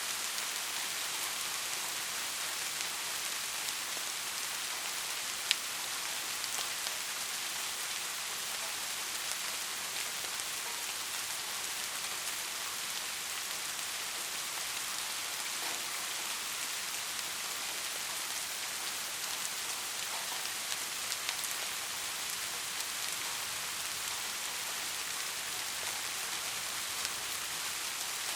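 Soft, steady rain falling on a surface, an even hiss with scattered small drop ticks and one sharper drip about five seconds in.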